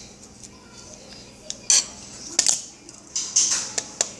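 Kitchen clatter of utensils and dishes: a string of sharp clinks and knocks, coming thicker over the last second or so.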